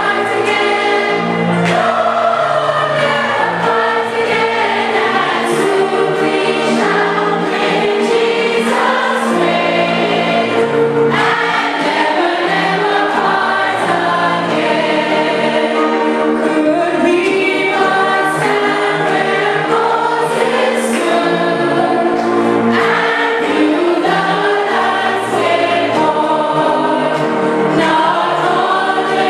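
Church choir singing, carried over steady held low notes beneath the voices.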